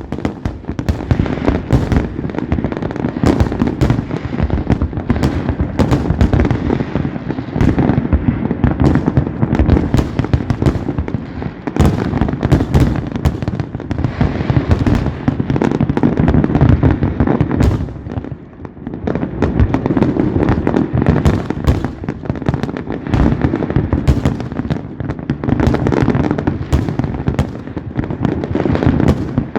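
Fireworks display: a dense, continuous barrage of shell bursts and crackling reports over a deep rumble of booms, easing briefly about two-thirds of the way through before building again.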